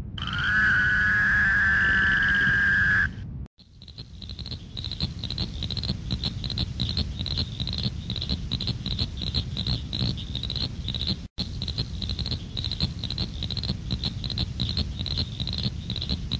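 Frog calls: a loud, steady, unbroken trill for about three seconds, then after a brief break a chorus of rapid, high-pitched repeated calls.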